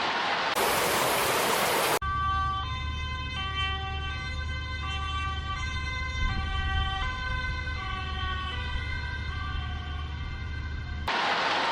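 Emergency-vehicle two-tone siren alternating between a high and a low note about every 0.7 s, over a steady low engine hum. Before it, for about two seconds, there is an even rushing noise. The siren cuts off abruptly near the end and the rushing noise returns.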